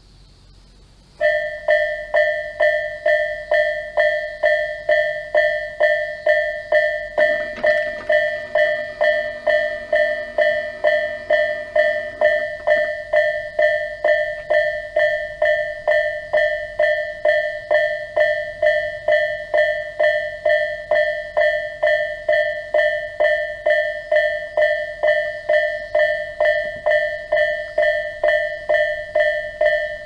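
Japanese railway level-crossing alarm sounding the electronic Tobu 'A' bell tone: a ringing ding repeated evenly, about two strikes a second. It starts suddenly about a second in, warning that a train is approaching.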